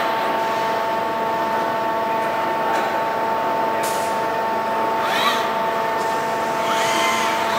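Industrial welding robot's servo motors whining up and down in pitch as the arm moves, over a steady machine hum, with a short hiss about four seconds in.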